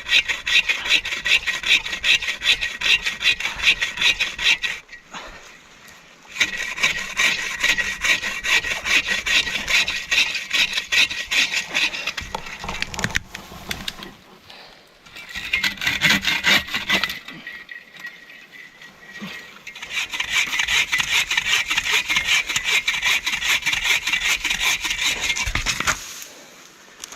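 Hand saw cutting through wood in rapid, even strokes, in four bouts with short pauses between.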